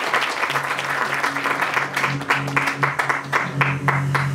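Audience applause thinning out into a few scattered claps that stop near the end, as an acoustic guitar starts playing steady low notes underneath about half a second in.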